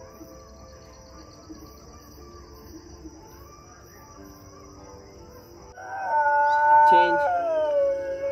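A long, drawn-out animal call starting near the end, held on one pitch and then sliding down as it fades.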